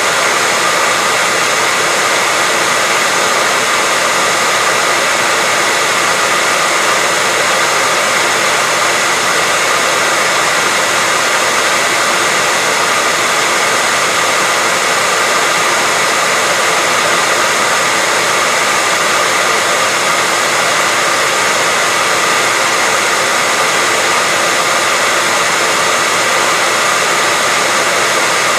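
Hair dryer blowing steadily: an even, unchanging whooshing hiss with a faint steady whine from the motor and fan, used as white noise to settle a baby to sleep.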